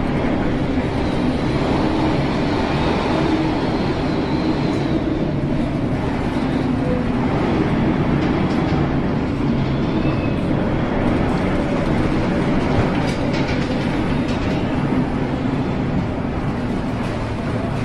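Fast-flowing floodwater making a steady, heavy rumbling roar.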